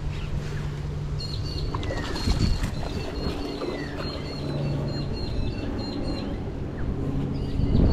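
Baitcasting reel being wound in as a hooked barramundi splashes and swirls at the surface close to the bank, with birds chirping.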